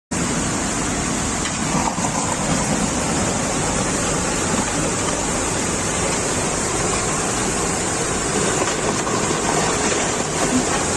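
Muddy flash-flood torrent rushing past, carrying debris: a steady, dense rush of water.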